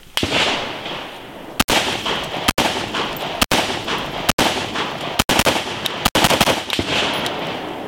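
An AR-style rifle fires about seven shots at a slow, steady pace, roughly one a second. Each sharp report is followed by a trailing echo.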